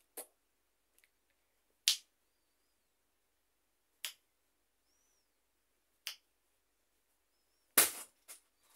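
A white parrot knocking its beak on the wooden edge it perches on: five sharp clicks about two seconds apart, the loudest near the end followed by two smaller ones. Faint short high chirps come between the clicks.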